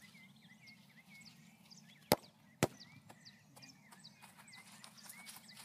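A soccer ball kicked with a bare foot: one sharp thump about two seconds in, then a second thump half a second later. Birds chirp faintly throughout.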